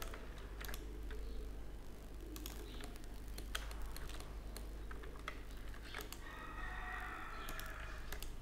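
Scattered clicks of a computer keyboard and mouse: key presses for the Ctrl+R loop-cut shortcut, mouse-wheel scrolling and button clicks, a few at a time, over a low steady electrical hum.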